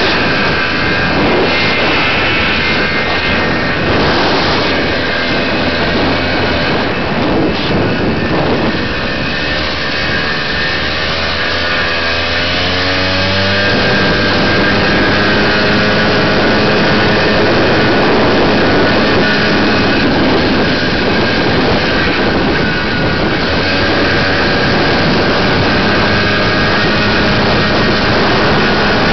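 Husqvarna army motorcycle's two-stroke engine running while the bike is ridden, over a dense rushing noise; its pitch rises and falls with the throttle about ten seconds in, then holds steady at cruising speed.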